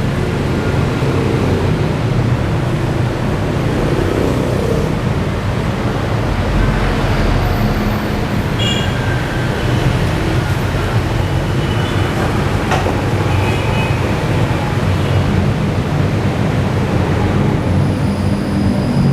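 Steady road traffic running by, a continuous rumble of engines and tyres, with a few short, faint higher tones over it about halfway through.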